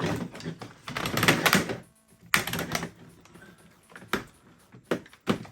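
Hard plastic action-figure parts clicking and rattling as they are handled and pressed into place on the figure, with a few sharper clicks in the second half.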